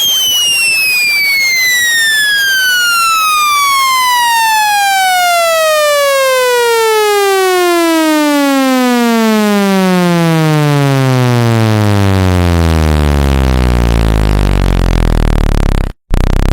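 A speaker-cleaning test tone: a loud electronic sine sweep that glides steadily down in pitch, from a high whistle to a deep bass hum over about thirteen seconds, gathering overtones as it falls. It then holds at the low end, cuts out for an instant near the end and resumes.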